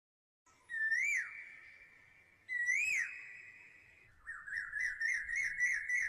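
Bird-like whistled calls: two separate calls that swoop up and back down, each trailing off in an echo, followed near the end by a fast warbling trill of about four notes a second.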